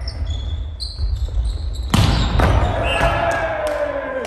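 Volleyball being played on a wooden gym court: one loud, sharp hit of the ball about two seconds in that echoes through the hall. Short high sneaker squeaks on the floor come before it, and a long falling call follows.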